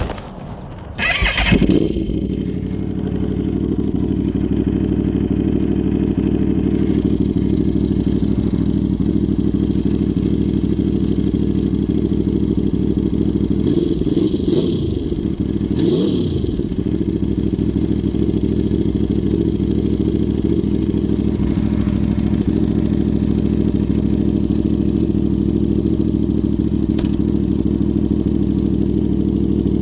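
Aprilia Tuono V4 R's V4 engine starting, catching with a loud burst about a second in, then idling steadily, with two short throttle blips about halfway through.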